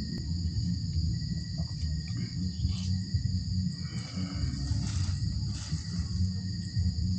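Crickets and other night insects trilling steadily, with background music underneath.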